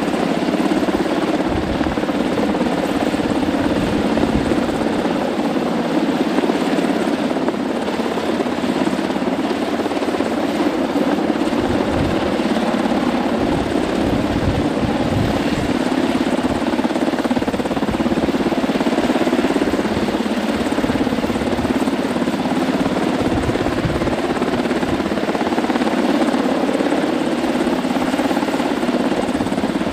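Helicopter hovering overhead during a rescue hoist, its rotor and engine noise loud and steady, with gusts buffeting the microphone.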